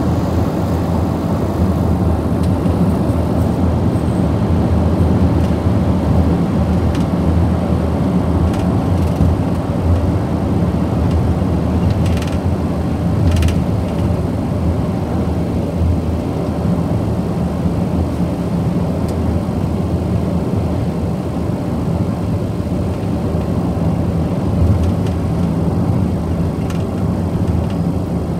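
Steady low rumble of tyres and engine heard from inside a moving car's cabin.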